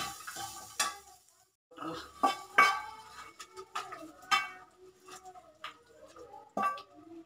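Metal spatula scraping and tapping a frying pan, and the pan knocking on a steel kadai as fried onions and spices are scraped into the gravy: a run of separate clinks and knocks, several ringing briefly.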